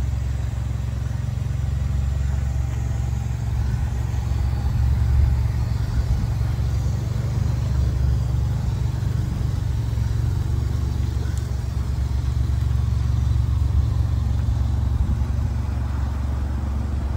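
Ford Mustang (S550) engine running steadily as the car rolls slowly across the lot, a low, even exhaust rumble with no revving.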